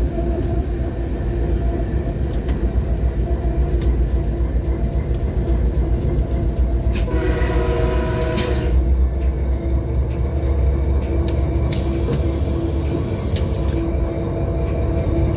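A train running with a steady low rumble; its horn sounds once, about seven seconds in, for under two seconds. A high hiss rises over the rumble for about two seconds near the twelve-second mark.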